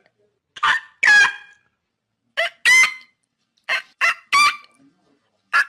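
Domestic fowl calling: repeated loud two-note calls, a short note then a longer one, about every second and a half.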